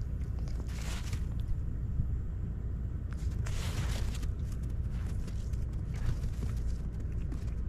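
Pine marten scuffling in the snow right beside the microphone: two rustling, scraping bursts, about a second in and again around three and a half seconds in, over a steady low rumble.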